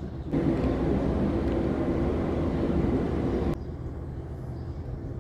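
Jet engine noise of a Boeing 757-200 arriving: a steady rush with a low hum. It starts suddenly just after the start and cuts off abruptly about three and a half seconds in, leaving a fainter rumble.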